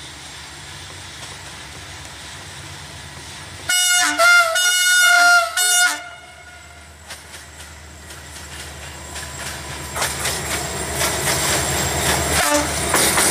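CFR diesel locomotive 65-1179-4 sounding its horn in a series of short blasts lasting about two seconds, a few seconds in. Then the locomotive and its passenger coaches grow louder as they approach and pass, with the wheels clacking over the rail joints.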